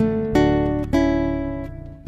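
Acoustic guitar playing a short phrase of plucked notes, struck at the start, about a third of a second in and near one second. The notes ring and fade before the next phrase begins, in the song's instrumental ending.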